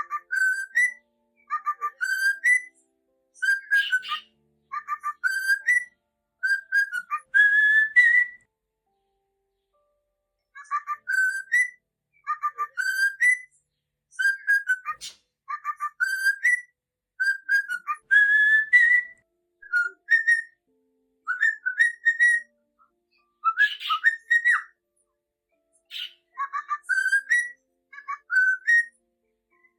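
Cockatiel whistling its song: the same short phrase of a few clear notes, each phrase ending on a rising note, repeated over and over with a short pause partway through.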